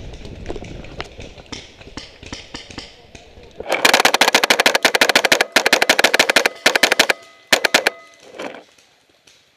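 Tippmann X7 Phenom paintball marker firing in a rapid burst of shots for about three and a half seconds, then a short extra burst. Before it, rustling of a player moving through dry leaves.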